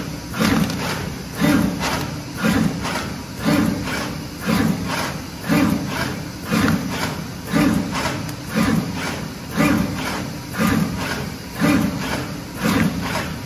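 Automatic tin-tie bag pasting machine running in a steady cycle about once a second, each cycle a quick double clack of its mechanism with clicks on top.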